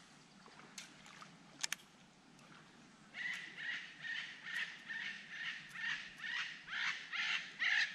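A parrot calls in a harsh, grating screech about two times a second, the calls growing louder near the end; it is the bird the men identify as an Eclectus parrot.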